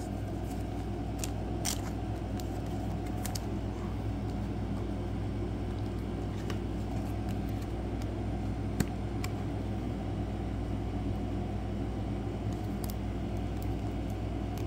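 Steady low machine hum with a few faint, scattered clicks and rustles from trading cards being handled.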